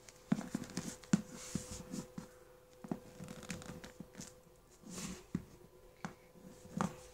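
Irregular soft knocks, taps and rustling from a toy baby doll being handled and moved about on a wooden floor close to the microphone, over a faint steady hum.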